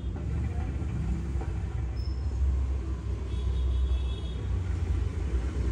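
Water bubbling in the base of a Russian-style hookah as smoke is drawn through the hose, heard as a steady low rumble that is loudest in the middle.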